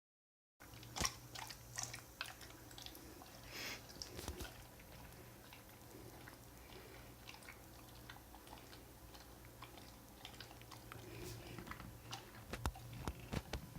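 Golden retriever chewing and licking sticky peanut butter: irregular wet smacks and mouth clicks, thicker in the first few seconds and again near the end, over a faint low steady hum.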